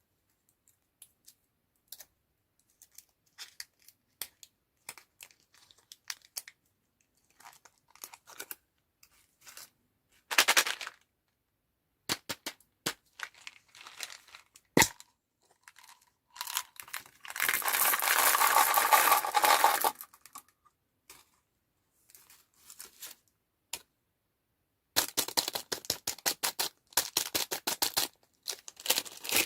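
Plastic candy wrappers being handled and torn open: scattered crinkles and taps, a loud sustained crinkling tear lasting a couple of seconds past the middle, and a quick run of crackles near the end.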